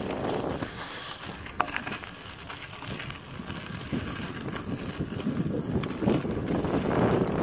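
Wind buffeting the microphone, an uneven rumbling noise that grows louder toward the end, with one sharp click about a second and a half in.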